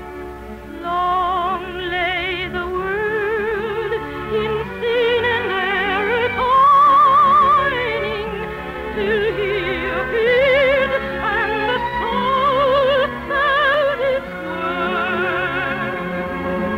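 Operatic soprano singing held notes with a wide vibrato over orchestral accompaniment. The sound is cut off above the middle treble, as on an old broadcast recording.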